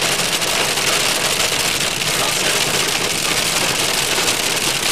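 Hail and rain hitting the body of a moving car, heard from inside the cabin as a steady, dense patter of small impacts.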